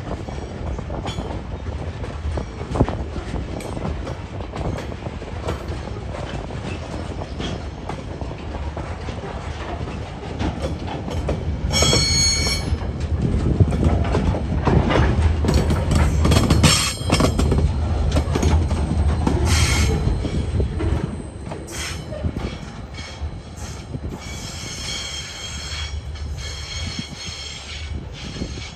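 Coal train hopper wagons rolling past: a steady low rumble with the clicking of wheels over rail joints, and high wheel squeal several times, loudest in the middle stretch. The sound grows quieter in the last third as the end of the train draws away.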